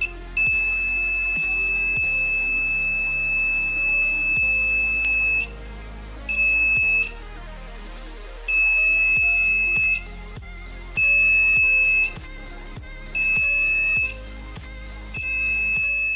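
Homemade door alarm's buzzer, run off a 1.5 V cell, sounding a steady high-pitched tone. It sounds once for about five seconds, then in five shorter blasts of about a second each as the alarm circuit is switched on and off.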